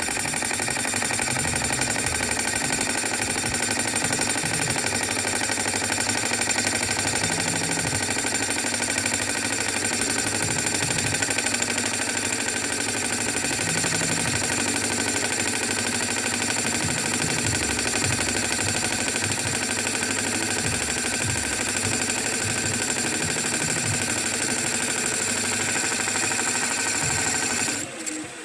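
Boring machine cutting out the crankshaft chamber of an AM6 moped crankcase: a steady, rapid chatter of the cutter over a steady whine. It stops suddenly near the end.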